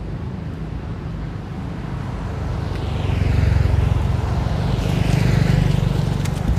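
Road traffic: two motor vehicles pass close by, one about three seconds in and another about five seconds in, each swelling and fading over a steady low rumble.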